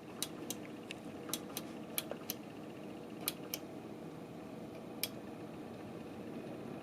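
Steady low hum of a running desktop PC's fans and liquid-cooler pump, with about a dozen short sharp clicks scattered through it, like buttons being pressed.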